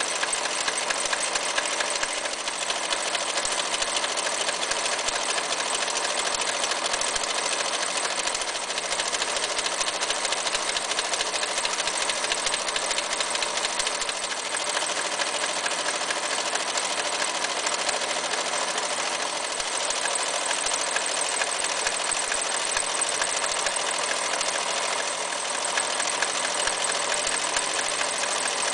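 Restored Toyota model 5001 electric sewing machine running steadily at speed, its needle stitching rows of decorative stitches through a fabric test piece, with a fast, even mechanical chatter.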